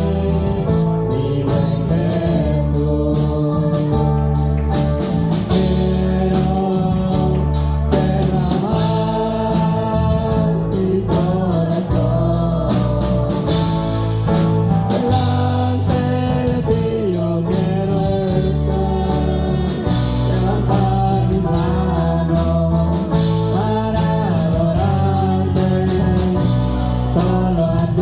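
Live Spanish-language worship music from a church band: singing over a strong bass and a steady drum beat.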